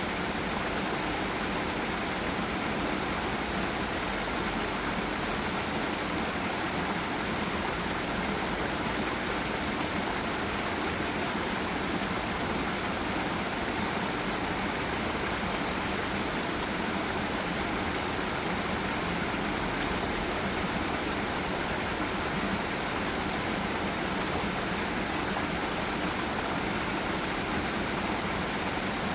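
Forest river and small waterfall: water rushing and splashing in a steady, unbroken flow.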